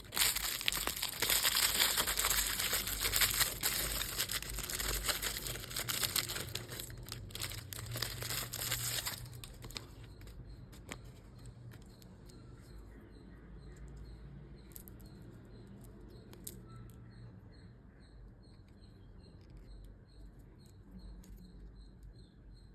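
Plastic candy wrapper crinkling and being torn open by hand, dense and crackly for about the first nine seconds. It then stops abruptly, leaving quieter handling with a few small clicks and taps.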